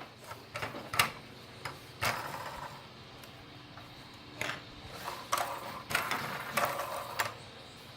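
Plastic toy car parts clicking and rattling as they are handled and fitted together, in a string of irregular sharp clicks.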